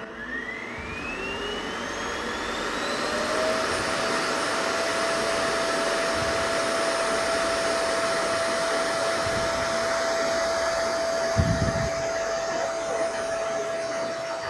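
The MONSGA MR7 Pro self-emptying base's dust-collection suction motor running, pulling the dust out of the robot vacuum's dust box into the base's bag: a whine rising in pitch as the motor spins up over the first three or four seconds, then a steady loud rush of air with a held whine. A short low thump comes about eleven seconds in.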